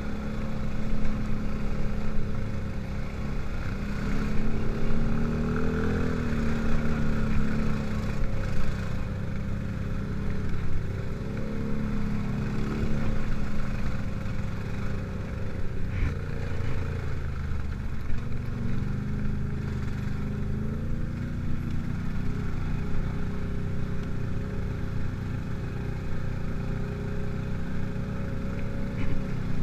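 ATV engine running under way on a dirt trail, its pitch rising and falling several times as the throttle is worked, with a sharp knock about halfway through.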